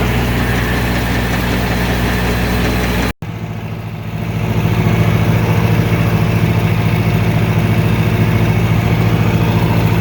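A farm engine runs steadily at a constant speed, likely a tractor or truck. About three seconds in the sound drops out for an instant and then comes back as a steady engine again, louder from about a second later.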